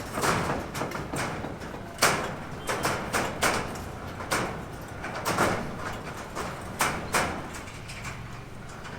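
Irregular knocks, bangs and scrapes of building work, coming every half second to a second or so at uneven spacing.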